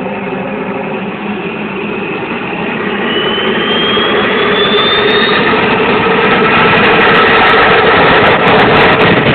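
Homemade gas turbine jet engine running, getting steadily louder, with a high whine that rises in pitch from about three seconds in as the turbine spools up.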